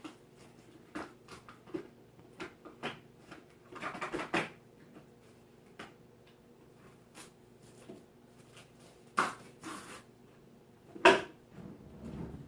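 Objects being handled: scattered light knocks and clicks with a few short rustles, the loudest knock about 11 seconds in, over a faint steady hum.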